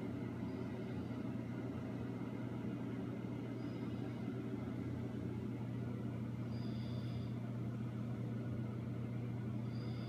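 Steady low hum with faint, brief high squeaks about every three seconds.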